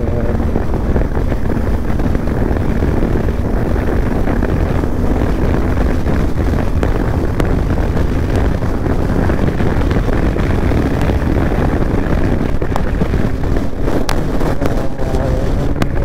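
Motorcycle riding at steady road speed: wind rushing over the microphone, with the bike's engine running evenly underneath.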